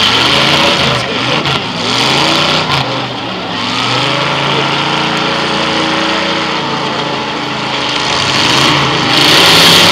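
Demolition derby cars' engines revving hard as the cars shove against each other, the pitch rising and falling, with one engine held at high revs in the middle. A loud hissing rush rises near the end.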